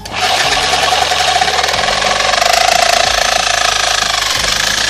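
Electric reciprocating saw starting up suddenly and then running steadily as its fine-tooth blade cuts through a thin-walled bamboo tube, a loud rapid buzzing rattle.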